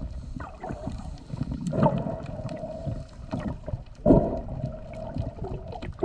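Underwater sound picked up through a camera housing: water sloshing and bubbling with many small crackling clicks as a long-handled brush scrubs a yacht's hull below the waterline. Two louder swells of churning water, about two and four seconds in, each carry a muffled humming tone.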